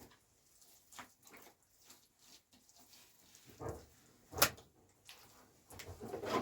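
Scattered light knocks and scuffs from handling work, with a duller knock a little past three and a half seconds in and one sharp knock about four and a half seconds in.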